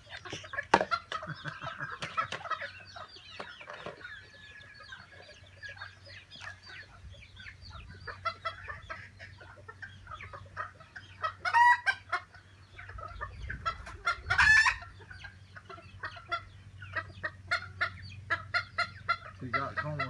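Backyard chickens clucking and calling as they feed, in many short repeated calls, with two brief louder, higher cries near the middle.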